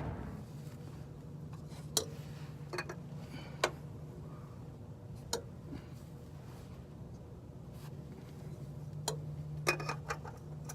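Scattered light clicks and taps of metal and plastic as a new oil filter is threaded onto a 2001 Honda Civic engine by hand, over a faint steady hum.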